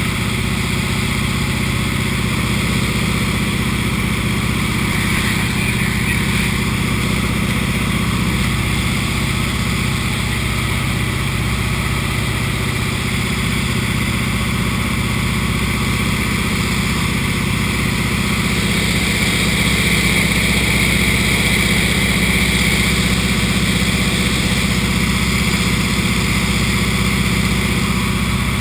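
Single-engine bush plane's piston engine and propeller running at a steady drone, heard inside the cockpit along with rushing air, as the plane descends toward landing. The rushing noise grows a little louder about two-thirds of the way through.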